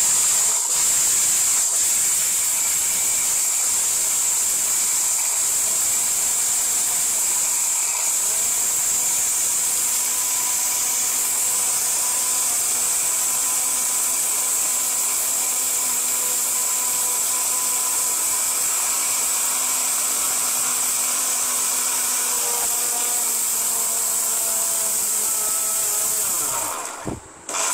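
Heavy-duty electric blender with steel bushings running at full speed, its stainless steel jar grinding whole garam masala spices (cinnamon, cloves, cardamom) to powder: a steady high motor whine with a hiss. It is switched off and stops abruptly near the end.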